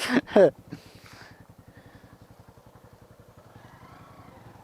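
Motorcycle engine running steadily with an even low pulse, with a loud voice briefly in the first second.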